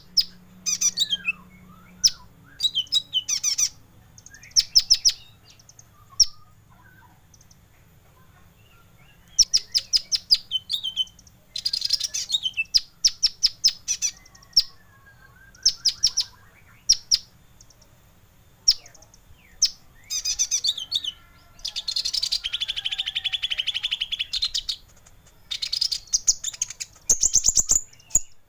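Kolibri ninja (konin) sunbird song: short bursts of sharp, rapid, high-pitched chirps and trills with pauses between phrases, including a longer unbroken trill about three-quarters of the way through.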